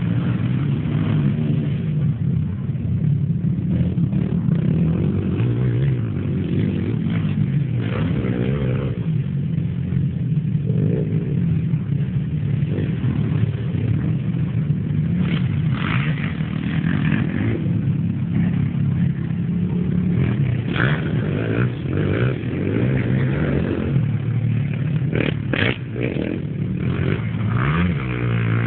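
Several racing quad (ATV) engines running on a dirt track, overlapping, their pitch rising and falling as the riders open and close the throttle.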